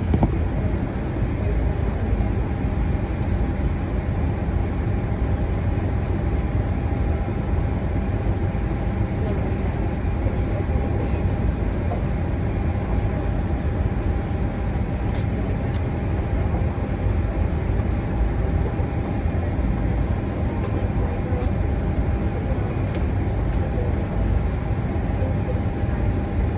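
Airliner cabin noise: a steady low rumble with a faint steady whine running through it.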